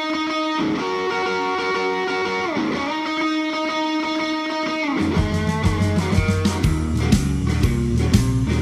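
Background music: electric guitar holding chords, sliding down to a new chord part-way through; about five seconds in, bass and drums join with a steady beat.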